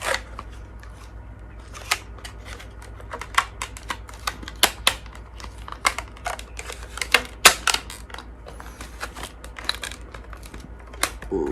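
Irregular clicks, taps and light knocks of sharpener parts and packaging being handled and unpacked, over a low steady hum.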